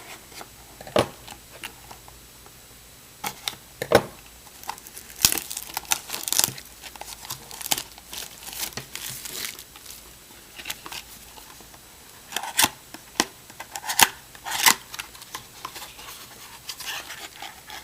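Wrapping on a trading-card mini box being torn open and crinkled by hand, with scattered sharp clicks and rustles of handling.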